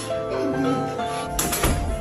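Background music: a light melody of held notes, with a soft low thud about one and a half seconds in.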